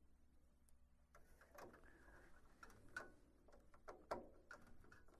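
Faint, irregular clicks and small knocks of a T10 Torx screwdriver turning a screw into a plastic mount, driving it home.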